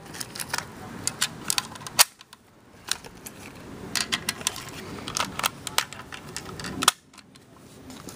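7.62×39 cartridges being thumbed one by one into a Polish AK-47 magazine: a quick, uneven series of metallic clicks over steady background noise, with a couple of sharper snaps.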